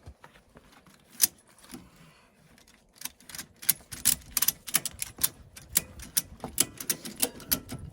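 Ratchet strap being cranked tight to hold a mini excavator's bucket down on the trailer: one click about a second in, then from about three seconds in a quick run of ratchet clicks, roughly four or five a second.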